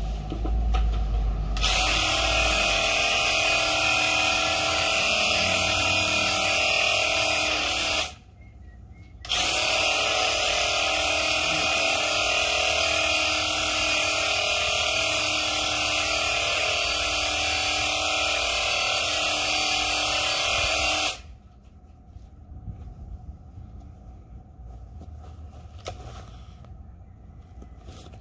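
Graco Ultimate cordless handheld airless paint sprayer spraying liquid masking onto window glass: a steady pump buzz under a hissing spray. It runs in two long trigger pulls, with a short break about eight seconds in, and stops about three-quarters of the way through.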